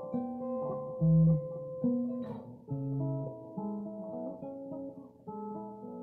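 Electric guitar played slowly with a clean tone: single picked notes and chord tones ringing over one another in a melodic phrase, with a louder low note about a second in.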